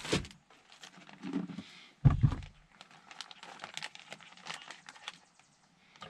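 Plastic bacon packaging crinkling and rustling as it is handled and opened, with one dull thump about two seconds in.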